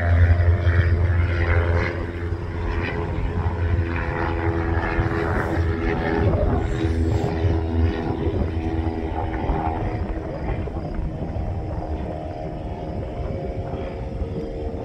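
Small propeller plane's engine running: a steady drone with several held tones over a deep hum. The hum drops away about eight seconds in, and the whole sound is loudest at the start and slowly eases off.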